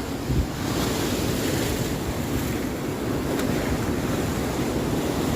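Ocean waves washing onto a beach in a steady surf wash, with wind rumbling on the microphone.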